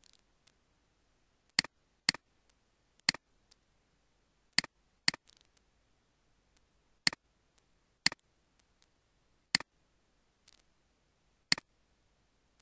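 Computer mouse clicks: about nine sharp single clicks at irregular intervals of half a second to two seconds, with a few fainter ticks between them.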